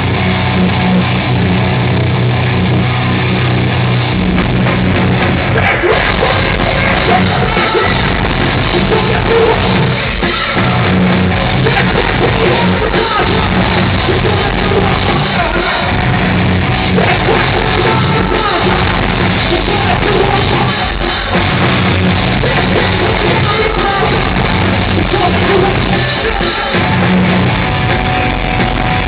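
Live heavy metal band playing loud, with drums and vocals over the guitars and bass.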